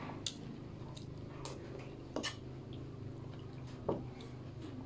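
Eating sounds: chewing with soft wet mouth noises, and three light clicks of a metal spoon against a bowl, over a steady low hum.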